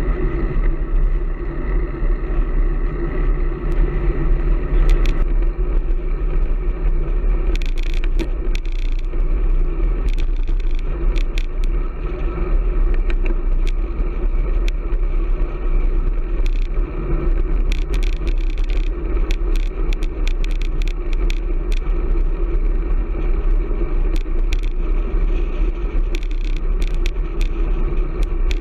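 Strong wind buffeting a camera microphone on a moving road bike: a loud, steady low rumble. From about eight seconds in it is joined by frequent sharp clicks and rattles.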